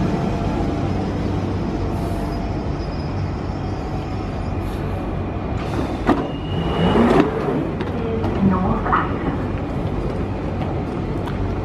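London Underground 1992 Stock train slowing to a stand at the platform, with a steady low rumble of its running gear and equipment. About six to seven seconds in comes a burst of hissing air with a brief high tone, followed by further short hisses and tones as the doors open.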